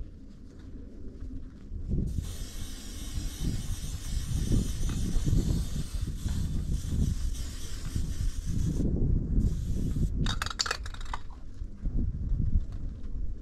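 An aerosol spray-paint can hisses steadily for about six seconds as paint is sprayed onto wooden boards. It stops, and about ten seconds in comes a brief quick rattle, the can being shaken.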